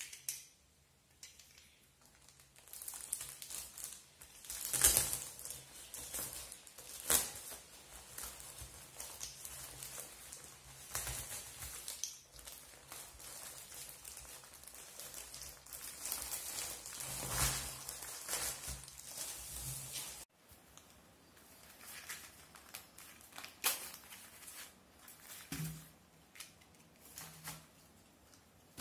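Plastic shrink-wrap and paper packaging crinkling and tearing as a utility-knife blade cuts open a wrapped bundle of matchbox packs, with irregular crackles and a few sharp louder rips. After an abrupt break about two-thirds of the way through, only quieter handling rustles and clicks remain.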